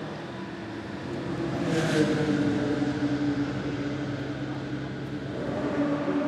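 Marcos LM600's Chevrolet-based 6.0-litre small-block V8 race engine idling, with a brief rise in revs about two seconds in that settles back to idle.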